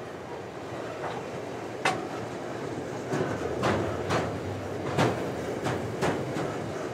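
Freight train's car-carrier wagons rolling slowly past as the train pulls away. There is a steady rumble with sharp metallic clanks and clicks from the wheels and couplings. The clanks come irregularly, about one to two a second, more often in the second half.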